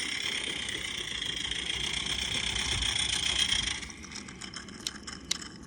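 Live steam Regner Lumberjack model locomotive running along the track with a steady steam hiss and mechanical whir, which stops about four seconds in. Light clicks and ticks follow.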